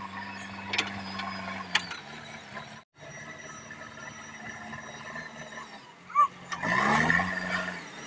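JCB 3DX backhoe loader's diesel engine running steadily, with a few sharp mechanical clicks early on. About six seconds in there is a sharp knock, then a louder stretch of engine and machinery noise with a short rising pitch.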